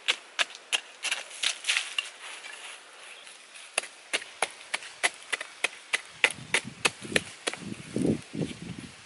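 A pointed wooden stick jabbing and scraping into dry, ashy soil, a run of sharp strikes about two or three a second. Duller soil-handling sounds come in near the end.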